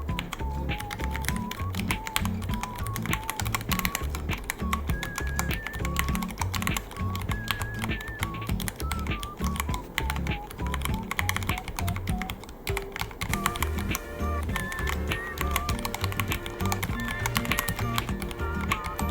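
Fast, continuous typing on a Ducky One 3 mechanical keyboard, key clicks coming in quick irregular runs, over background music with a melody and a repeating bass.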